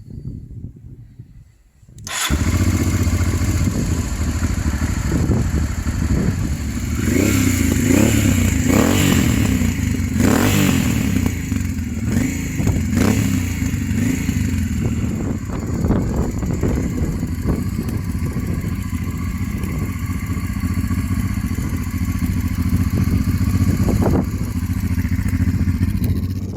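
Honda Transalp XL600V's V-twin engine running while the motorcycle is ridden over a rough off-road track, coming in loud and sudden about two seconds in. Short knocks and clatter sound over the engine, most densely a few seconds later.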